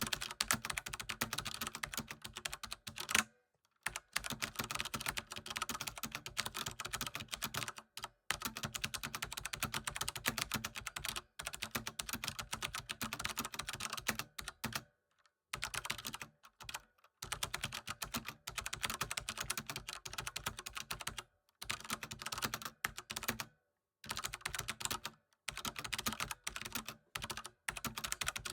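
Fast typing on a computer keyboard: dense runs of key clicks lasting a few seconds each, broken by short pauses.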